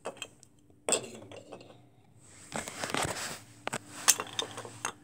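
Thomas the Tank Engine toy train clinking and knocking as it is handled and bumped against a toy block: one sharp click about a second in, then a run of small clinks in the second half.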